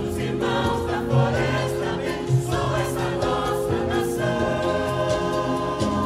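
Choir singing with instrumental backing, with sustained chords, and two sharp percussive hits about one and two seconds in.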